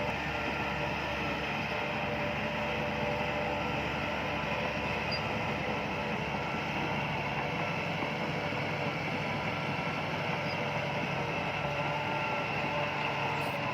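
Bulldozer's diesel engine running steadily, a continuous drone with several steady tones layered over it.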